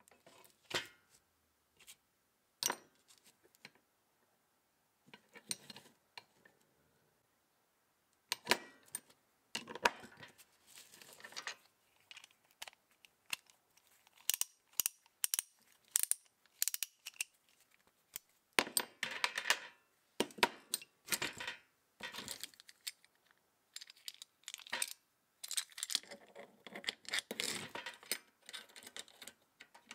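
Chrome steel sockets and hand tools clinking and clicking against each other and the tin case as they are picked up, handled and set back down. The clinks come sparsely at first and much more often from about eight seconds in.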